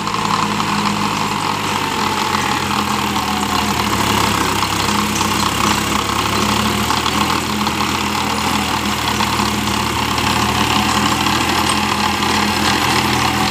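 New Holland tractor's diesel engine running steadily under load, driving a rear-mounted rotavator that churns soil and banana-plant debris.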